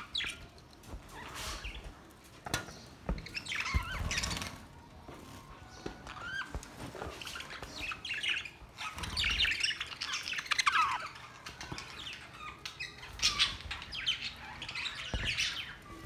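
A flock of budgerigars chattering: many overlapping short chirps, warbles and squawks, with a few sharp knocks in between.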